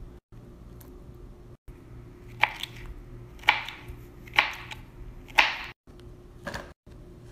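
Kitchen knife slicing through soft yellow fruit onto a plastic cutting board: four cuts about a second apart, over a low steady hum.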